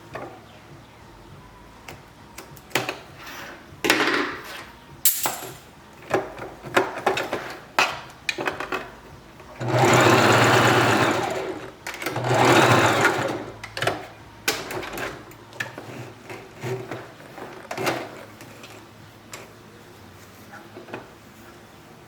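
Sewing machine stitching a wig in stop-start bursts: many short runs, with two longer runs about ten and twelve seconds in.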